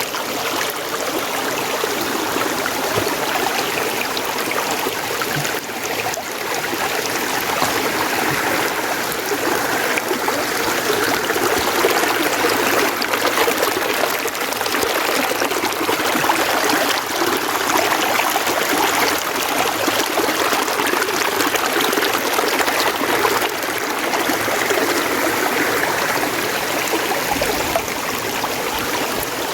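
Mountain stream running: a steady, unbroken rush of flowing water with a trickling edge.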